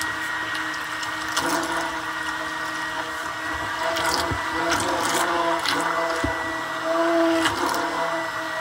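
Handheld immersion blender running steadily in a tub of liquid orange-juice marinade, a motor hum with a high whine over it. A few sharp clicks come and go as the shaft is moved around the container.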